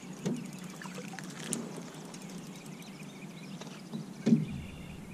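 A small bass being reeled to a boat and lifted aboard: light splashing and handling noises with scattered small ticks, then a single loud thump about four seconds in.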